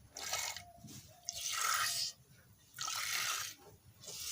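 Milk squirting into a pail during hand milking of a cow: four hissing squirts at an even pace, about one every second and a half.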